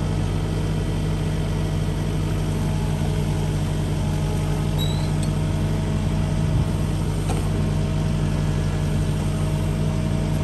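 Excavator diesel engine running steadily, with a single light knock about seven seconds in.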